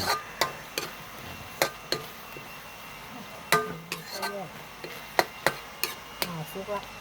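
A spoon or ladle knocking and scraping against a cooking pot as the chili mixture is stirred, giving irregular sharp clicks about once or twice a second over a low sizzle.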